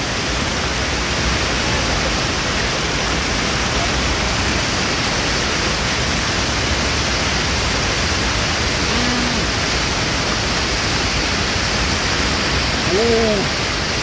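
Mountain waterfall cascading over boulders, a steady rushing roar of white water close to the microphone. A man makes two short murmurs, about nine seconds in and again near the end.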